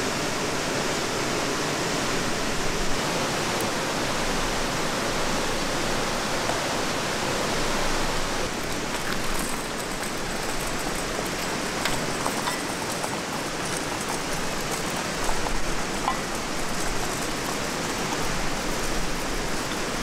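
Steady rush of flowing water, with a few faint ticks in the second half.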